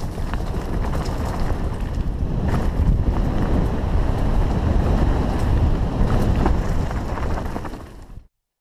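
Wind buffeting a helmet camera's microphone during a fast mountain-bike descent, over a heavy low rumble with scattered knocks and rattles from the bike on rough dirt trail. The noise cuts off suddenly near the end.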